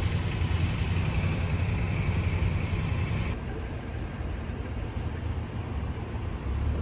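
Vehicle driving: a steady low road-and-engine rumble with a hiss over it. The upper part of the hiss drops away abruptly about three seconds in.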